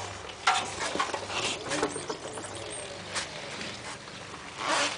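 Scattered light clicks and short rubbing or rustling sounds, about six spread over a few seconds, with a couple of brief faint squeaks about two seconds in.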